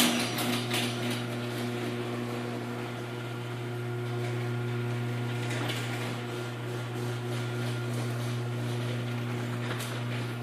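LiftMaster 8165 chain-drive garage door opener running, a steady motor hum as it drives the door along its travel.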